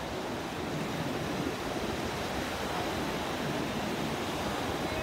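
Steady rush of ocean surf with wind buffeting the microphone.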